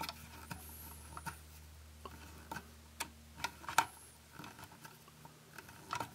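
Light, irregular clicks and ticks of a screwdriver and small plastic parts as a self-tapping screw is set and driven to mount a plastic HO scale boxcar truck, over a faint steady low hum.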